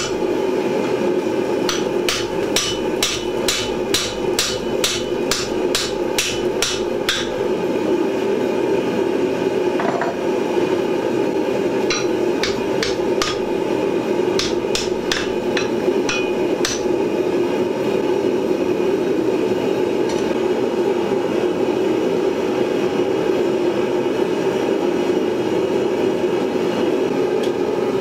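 Hand hammer blows on a hot-cut chisel and red-hot square steel bar on an anvil, cutting into the end of the bar. Two runs of quick, ringing blows at about three a second, the first lasting about five seconds and the second starting about twelve seconds in. A steady rushing background noise runs under them and is left alone after about seventeen seconds.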